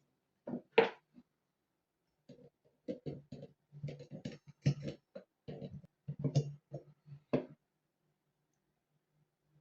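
Irregular clicks and knocks of blender parts being handled and fitted by hand, with short pauses between them; no motor is running.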